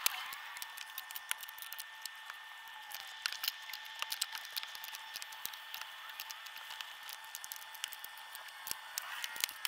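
Plastic grille clips and the lower grille of a Ford Mustang's front bumper being worked free by hand and screwdriver: irregular small clicks, snaps and taps of plastic, over a faint steady high hum.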